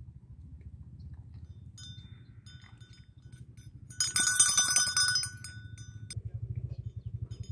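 A small metal bell jingling in short bursts, then ringing rapidly with a rattle for about a second, about four seconds in, which is the loudest part. A steady low rumble runs underneath.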